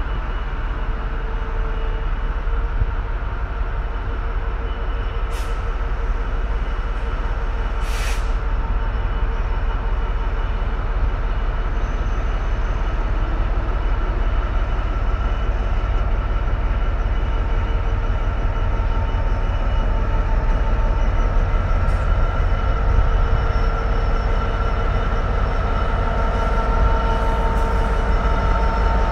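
Freightliner Class 66 diesel locomotive, with its two-stroke V12 engine, running as it slowly approaches hauling loaded stone wagons: a steady low rumble with a held tone, growing gradually louder. A few brief sharp clicks sound over it.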